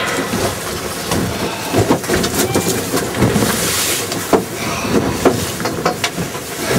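Wind and sea noise on a small open boat, with scattered knocks and thumps as a halibut is gaffed at the side, and a brief surge of hiss about three seconds in.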